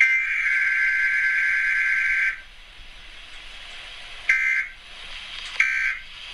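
Emergency Alert System SAME data tones from a TV: a harsh two-tone digital buzz lasting about two seconds, the end of the alert header. After a pause come two short bursts, about a second and a half apart, which open the end-of-message signal of a Required Weekly Test.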